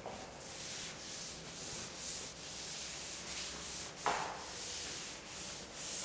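Cloth wiping chalk off a chalkboard: a soft rubbing hiss that swells and fades with each stroke. There is one short, louder sound about four seconds in.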